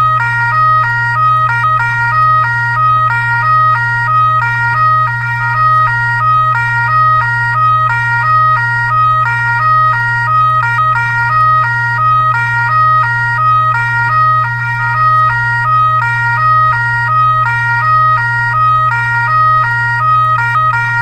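Fire truck electronic siren sounding a fast two-tone hi-lo pattern, stepping back and forth between two pitches several times a second, over a continuous low hum.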